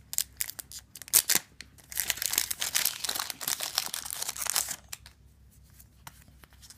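Foil booster-pack wrapper being torn open and crinkled by hand. Sharp crackles in the first second or so, then a couple of seconds of continuous crinkling that stops about five seconds in.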